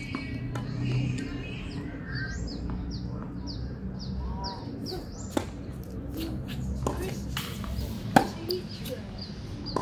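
A bird repeating a short, high, falling chirp two or three times a second for several seconds. A tennis ball is then hit back and forth in a rally, with a sharp crack of racket on ball about eight seconds in.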